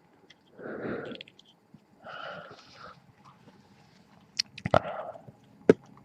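A person's breath and mouth noises close to the microphone: two breathy exhalations in the first three seconds, then a few sharp clicks near the end.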